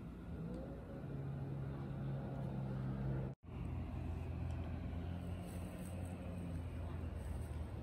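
A motor running steadily, a low hum whose tone drifts slowly up and down in pitch. The sound cuts out for an instant about a third of the way through.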